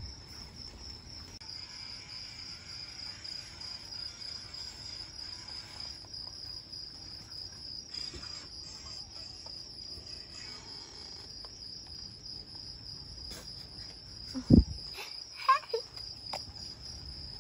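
Insects chirping in a steady, fast, high trill that never lets up. Near the end, a loud knock and then two smaller knocks.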